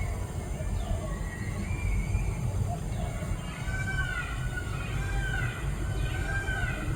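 A steady low rumble, with short high calls sliding down in pitch over it, more of them in the second half.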